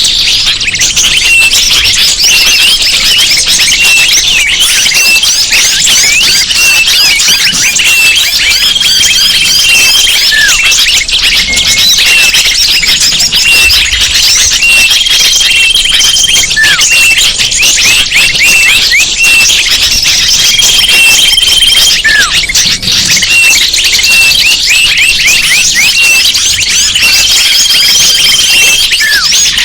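Bird-lure recording: a dense chorus of many small birds chirping and twittering at once. A held whistle comes back about every six seconds, each followed by a short falling call.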